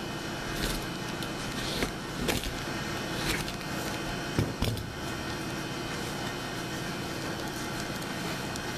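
Cardboard boxes being moved and opened on a wooden table: a handful of short rustles and light knocks in the first half, over a steady background hum.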